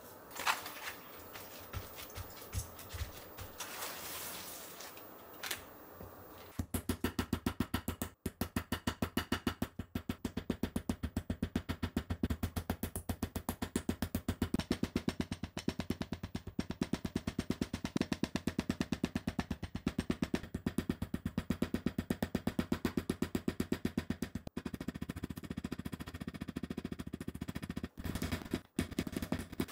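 A metal fork jabbing rapidly into pork cutlets on a cutting board to tenderise them, about five sharp taps a second, growing softer near the end. Before the tapping begins a few seconds in, there are light handling sounds of raw meat being laid out.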